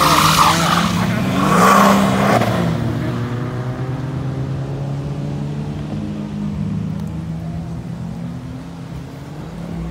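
A car driving past on a wet road: engine note and the hiss of tyres on water, loudest in the first two or three seconds, then fading away. A steady engine drone carries on underneath.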